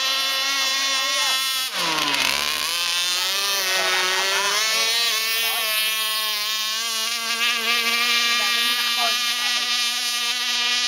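Electric radio-controlled speedboat running fast across the water, its motor giving a steady high-pitched whine with many overtones. About two seconds in, the whine drops sharply in pitch and then climbs back up.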